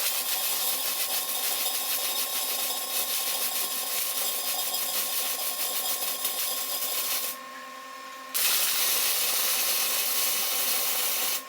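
Arc welding on steel: two continuous weld runs with a steady noisy hiss. The first lasts about seven seconds and the second, after a second's pause, about three, each starting and stopping abruptly.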